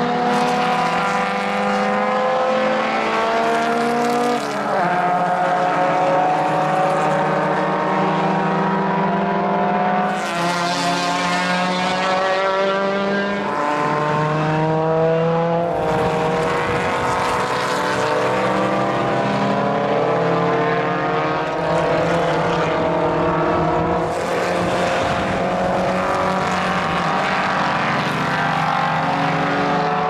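Several historic single-seater formula racing cars accelerating hard on the circuit, their engine notes overlapping. Each note climbs in pitch through a gear and drops back at the upshift, again and again as different cars pass.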